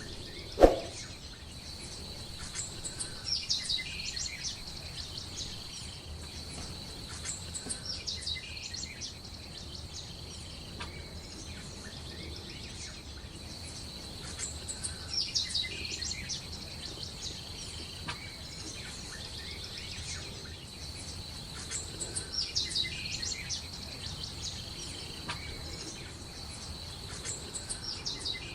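A bird chirping in short bursts of quick high chirps that come back every several seconds, over a steady high-pitched tone. One sharp knock about half a second in is the loudest sound.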